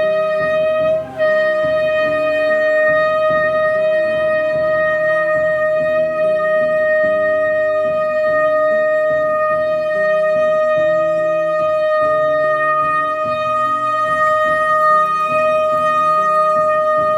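Shofar sounding one long held note over background music with a repeating low pattern, the note breaking briefly about a second in.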